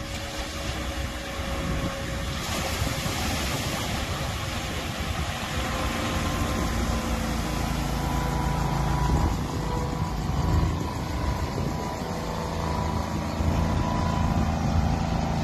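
Smuggler Strata amphibious boat's engine running steadily as the boat drives out of the surf and across sand on its wheels, with a wash of surf about three seconds in.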